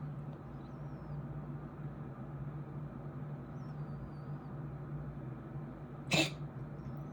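A pet coughs once, a short sharp burst about six seconds in, over a steady low hum.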